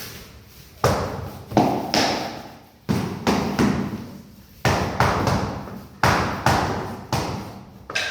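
A series of about seven heavy blows on flooring, spaced irregularly about a second apart, each a sharp knock that fades over the following half second or so.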